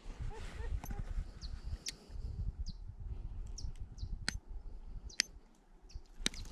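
Fishing pliers clicking a few sharp times at a hook in a trout's mouth, over a low rumble on the microphone, with small birds chirping briefly in the background.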